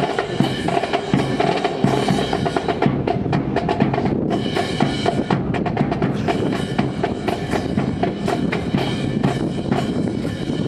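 Marching percussion section playing a fast, continuous drum cadence on snare and bass drums.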